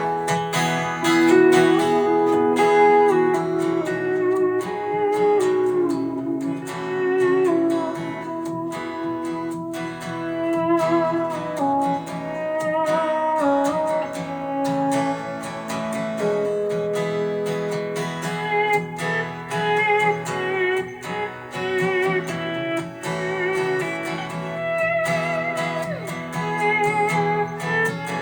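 Instrumental break of a country-rock song: guitars playing with no singing, a lead line that slides and wavers in pitch over a steady strummed accompaniment.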